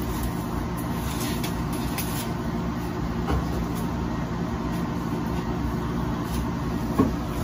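Steady low hum of a running motor, with one short click near the end.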